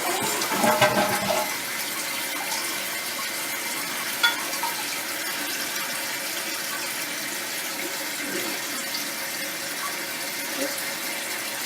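Toilet tank refilling after a flush: a steady hiss of water running into the tank, with a single click about four seconds in.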